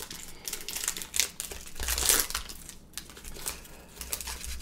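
Foil wrapper of a Pokémon trading card booster pack crinkling irregularly as it is torn open by hand and pulled back from the cards.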